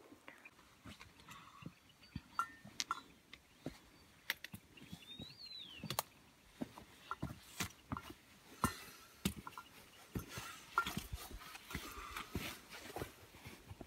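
Irregular footsteps and trekking-pole taps on a rocky mountain trail, with small clinks of gear and brushing of shrubs.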